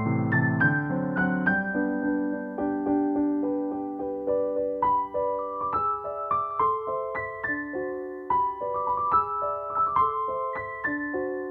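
Background piano music, single notes struck one after another and left ringing, with lower notes held underneath early on.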